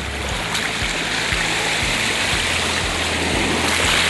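Shallow surf washing in over a pebbly beach, a steady rushing hiss that grows a little louder near the end. Background music with low bass notes runs underneath.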